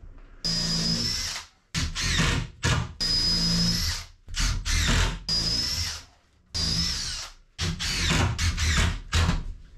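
Cordless drill run in about nine short bursts, its motor whine coming up to speed at each start, driving screws into a wooden bench frame.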